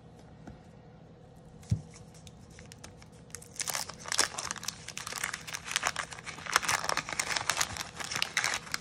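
Wax paper wrapper of a 1987 Topps baseball card pack being torn open and crinkled by hand, a dense crackling that starts about three and a half seconds in. Before that it is quiet apart from a single sharp knock.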